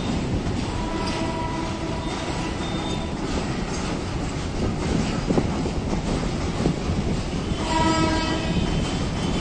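Train rumbling steadily across a steel truss bridge. A horn sounds twice: a held blast of about two seconds near the start, and a shorter one near the end.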